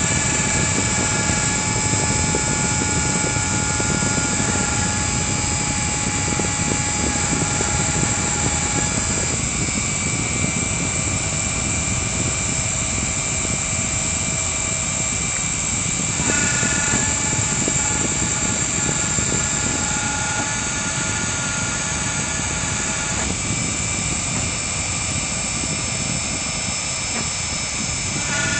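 CNC router carving wood: the spindle motor runs steadily under a dense grinding noise. Over it sits a set of whining tones that switch to a new pitch every several seconds as the machine's moves change.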